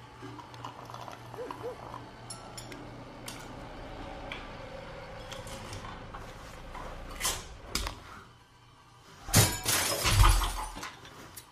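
Scattered clinks and light knocks of small steel parts being handled, a Bosch VE injection pump's drive shaft, gear and shims, with a louder clatter near the end.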